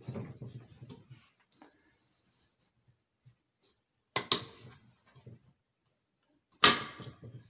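Metal parts of a Kalashnikov USA PK9 pistol being handled on a plastic table: a short rubbing shuffle at the start, then two sharp clacks about two and a half seconds apart.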